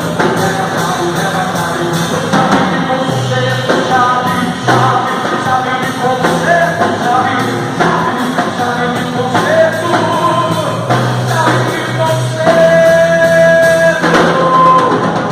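A song with a singer over a band accompaniment, the melody rising and falling, with one long held note near the end.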